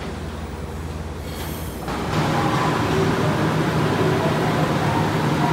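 Train running noise: a steady low rumble as an electric train approaches the platform, cut off abruptly about two seconds in by a louder, steady hum of trains standing at a station platform.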